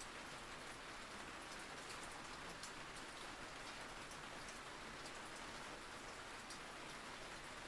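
Steady rain falling: an even, soft hiss with scattered light ticks of drops.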